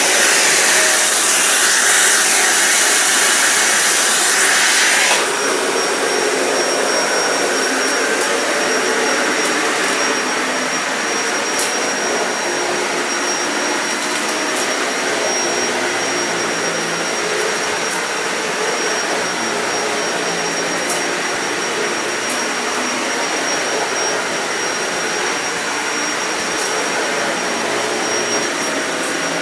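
Dyson Ball Animal 2 upright vacuum cleaner starting up and running steadily while vacuuming. About five seconds in, the loud bright rush drops to a lower, even running sound with a thin high whine.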